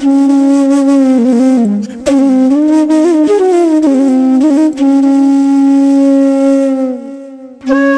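Background music: a solo flute melody with bending, ornamented notes and one long held note that fades out about seven seconds in, followed by a brief pause before the melody starts again.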